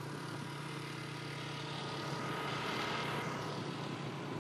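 Motor scooter engine running steadily at cruising speed, a low hum under road and wind noise that swells briefly about halfway through.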